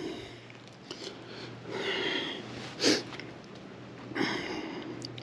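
A person sniffing through the nose, the sharpest sniff just before three seconds in, with quieter rustling around it.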